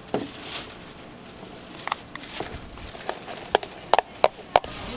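A plastic scoop clacking against clear plastic food tubs while chopped ingredients are scooped out. It gives a few sharp knocks, then a quick run of louder clacks in the second half.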